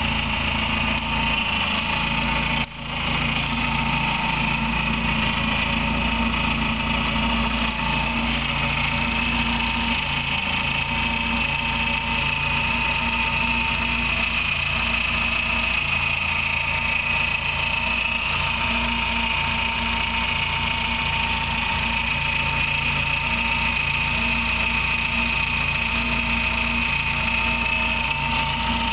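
Volkswagen Voyage engine idling steadily with a continuous high chirp over it, a noise like a small bird singing in the engine. The owner has already replaced the alternator bearing and the timing-belt tensioner, and the chirp stays even with the alternator belt off. It grows louder as the engine warms up and is absent when the engine is cold.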